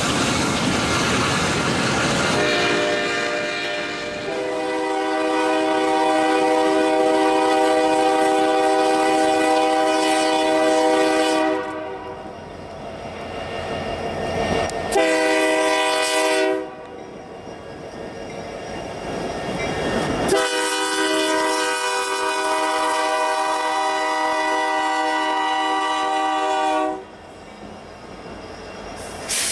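Diesel locomotive's multi-note air horn sounding a grade-crossing pattern: two long blasts, one short, then a final long one. Before it, a freight train rumbles past on the rails.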